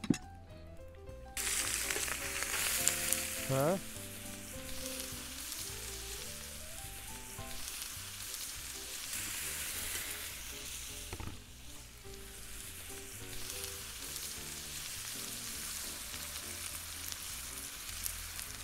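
Chopped onions frying in butter in a wide steel wok over a wood fire, stirred with a metal skimmer. The sizzle starts suddenly about a second in, is loudest for the next few seconds, then settles to a steady sizzle. Soft background music plays underneath.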